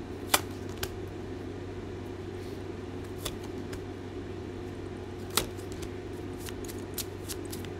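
Tarot cards being handled and drawn: scattered short, sharp clicks and snaps of the cards, the loudest near the start and another about five seconds in, over a steady low hum.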